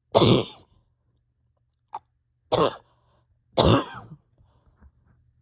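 A person's chest cough: three harsh single coughs, the first right away and two more close together about two and a half and three and a half seconds in. It is the cough of someone with pain deep in the chest that a bronchodilator has not relieved.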